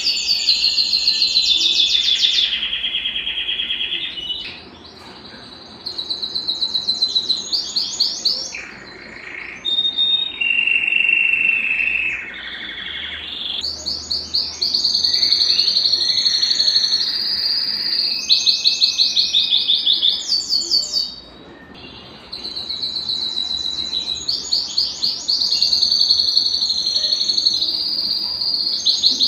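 A Belgian canary singing a long song of rapid trills and rolls. Each phrase is a fast run of repeated notes, and the pitch shifts from phrase to phrase, with short breaks about 5, 9 and 21 seconds in.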